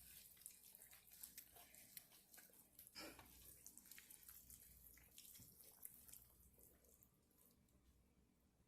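Faint, wet squishing and small clicks of bare hands rubbing a buttery seasoning mixture into a raw turkey. The sounds thin out to near silence about seven seconds in.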